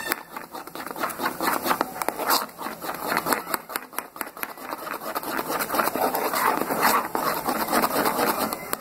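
Metal spoon beating thick gram-flour dhokla batter in a steel bowl: rapid, irregular scraping and clinking of spoon on bowl, with wet slapping of the batter.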